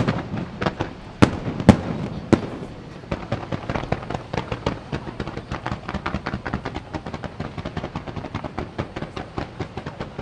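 Aerial fireworks: several loud bangs from bursting shells in the first two and a half seconds, then a dense, rapid crackling of many small pops for the rest.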